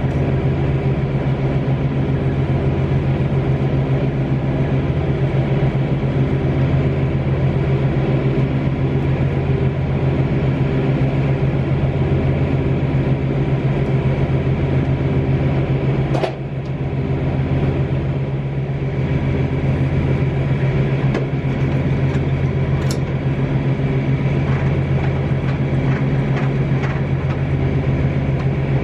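Diesel engine idling steadily, a deep even drone. It breaks for a moment about halfway through, and a few light clicks sound in the second half.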